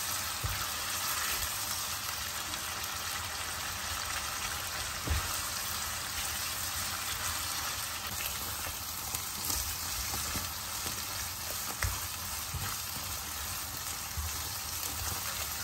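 Chicken cubes and tomato paste sizzling steadily in olive oil and butter in a non-stick wok, cooking down over a medium-high flame. A silicone spatula stirs them, with a few faint knocks against the pan.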